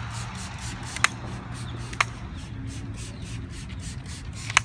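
Trigger spray bottle spritzing cleaning solution onto a car window: three short, sharp sprays, about a second in, about two seconds in and near the end.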